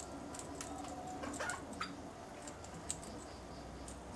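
Australian king parrots feeding at close range: faint, irregular clicking and tapping, a dozen or so short clicks spread unevenly.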